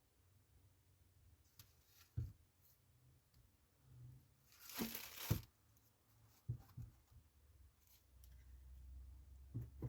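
A short tearing sound about five seconds in, between a few soft knocks.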